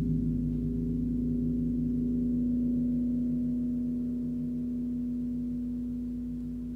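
Large gong tuned to G#1 (about 52 Hz) ringing softly after a gentle mallet stroke: a low, sustained hum with several steady overtones that swells slightly, then slowly fades.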